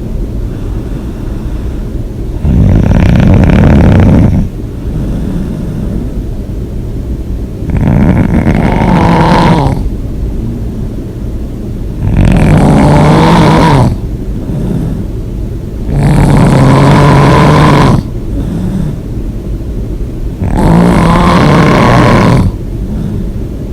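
A person snoring loudly in a slow, regular rhythm. Each snore lasts about two seconds, with about four seconds between the starts of each, and quieter breathing in between.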